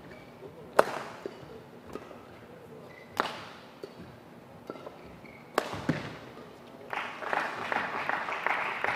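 Badminton racket strikes on a shuttlecock, three sharp hits about two and a half seconds apart during a rally. About seven seconds in, the rally ends and scattered clapping starts up and carries on.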